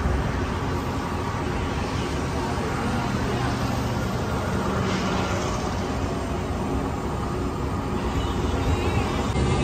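Steady roadside traffic noise: a low rumble with a hiss over it.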